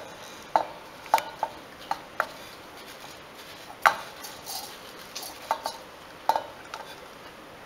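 A wooden spatula knocking and scraping against a non-stick pan and the rim of a steel mixer jar as dry-roasted rice flakes and oats are tipped out, giving a string of irregular sharp knocks, the loudest about four seconds in.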